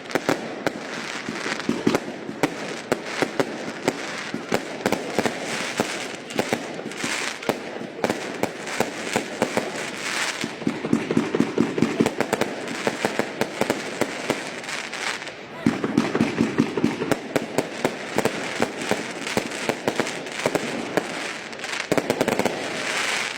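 Fireworks display: a rapid, continuous barrage of sharp bangs and crackles, many reports a second, with crowd voices underneath.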